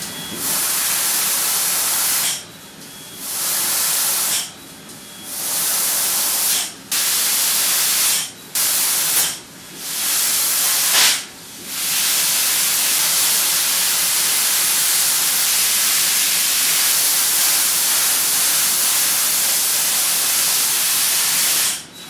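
Mazak Optiplex 3015 fiber laser cutting 3 mm brass, its cutting head blowing nitrogen assist gas through the nozzle: a loud, even hiss. The hiss drops away briefly about six times in the first twelve seconds as the head moves between cuts, then holds steady.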